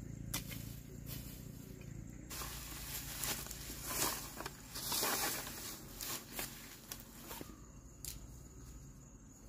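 Dry grass and straw being scraped and raked with a long-handled tool, a crunching rustle that comes in a few strokes and is loudest in the middle. A couple of sharp clicks come near the start.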